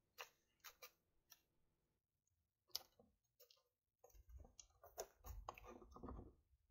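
Near silence with faint clicks and soft taps of small glued wooden pieces and blue painter's tape being handled as the taped mitered sides are folded together into a box. A few isolated clicks come in the first half, the sharpest a little under three seconds in, then a loose cluster of soft taps and rustles in the second half.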